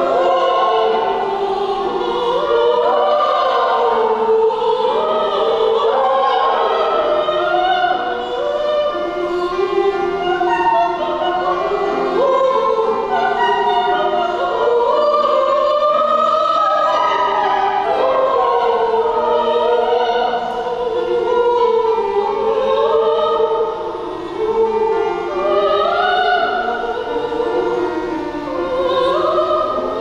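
Live operatic singing of a zarzuela excerpt, accompanied by a grand piano.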